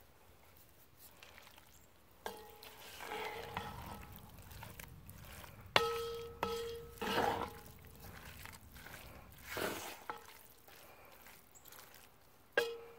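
A wooden spoon stirring diced tomatoes into ground beef in a cast iron Dutch oven: wet, squelching scrapes of the stir, and several knocks of the spoon against the pot, each followed by a brief ring.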